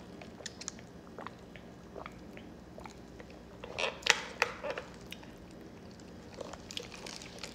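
A person sipping soda through a straw from a paper cup: soft sucking and swallowing with scattered small mouth clicks, the loudest few about four seconds in.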